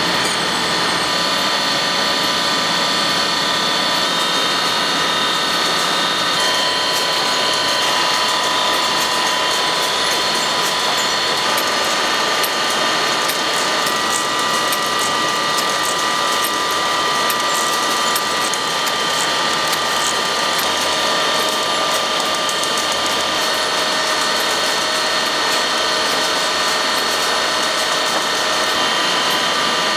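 Egg grading and packing line running: roller conveyors and egg-handling mechanisms clattering with dense, fine clicking over a steady machine hum of several pitches.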